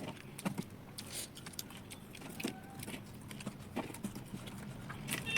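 Utensils and dishes handled while food is served onto a plate: scattered light clicks, taps and clinks at uneven intervals, with a brief faint ring or two.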